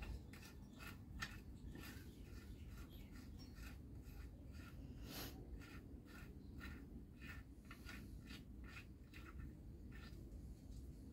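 Faint, light clicking and rubbing as a VW Golf mk1 1.4 crankshaft is turned by hand in its oiled main bearings, the caps seated but not yet torqued, to check that it spins freely.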